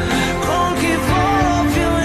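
Background music: a song with a singing voice over a steady instrumental backing.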